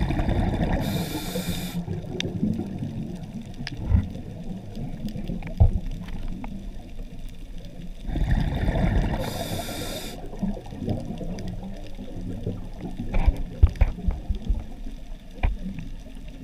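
Scuba diver's regulator breathing underwater: two slow breaths about eight seconds apart, each a second-long hiss of inhalation with a rush of bubbling exhaust. Scattered sharp clicks fall between the breaths.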